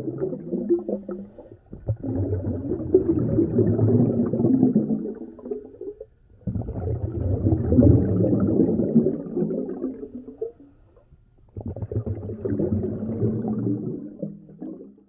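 Scuba diver's exhaled breath bubbling out of the regulator, rumbling past the underwater camera: three long exhalations of a few seconds each, separated by short pauses.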